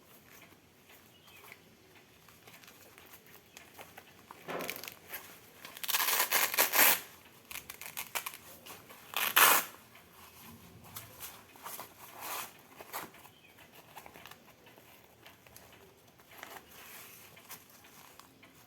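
Tearing and crinkling handling noise from unboxing a manual sphygmomanometer kit, in short bursts. The loudest is about six to seven seconds in, with a sharp one about nine and a half seconds in and fainter ones later.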